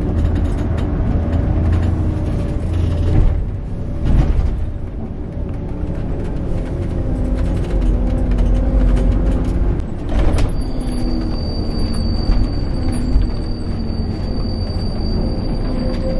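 Scania K410 coach's rear-mounted diesel engine running, heard from inside the cabin as the bus drives, its pitch shifting slowly. Two sharp knocks come about four and ten seconds in, and a thin steady high whine starts around ten seconds in.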